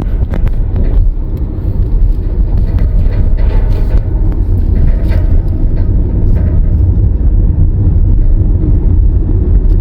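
Car driving: a steady low road and engine rumble with no speech.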